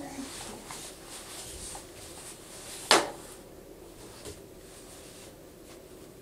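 A baby handling a plastic activity toy: one sharp plastic click about three seconds in, amid faint rustling and small knocks.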